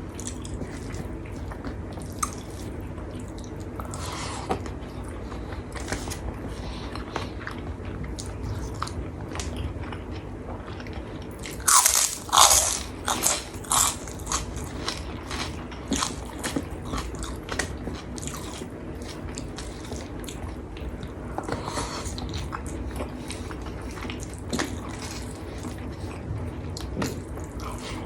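Close-up eating sounds: chewing with small crunches, and a burst of loud crunching about twelve seconds in as crispy crackers are bitten.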